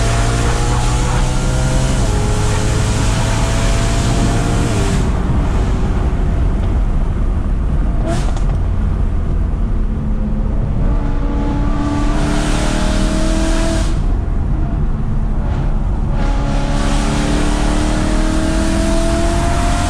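BMW E92 M3's 4.0-litre V8 being driven hard: several pulls with the engine note rising in pitch, broken by lifts off the throttle, one around 5 seconds in and another around 14 seconds in.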